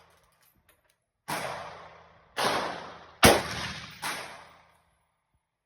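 Four rifle shots from a Christensen Arms Modern Precision Rifle, coming a second or less apart, each trailing off in an echo of about a second; the third shot is the loudest and sharpest.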